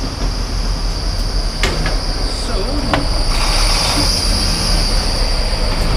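Steady low rumble of idling semi-truck diesel engines with a constant high whine over it, and two sharp clicks about one and a half and three seconds in as the diesel pump nozzle is handled.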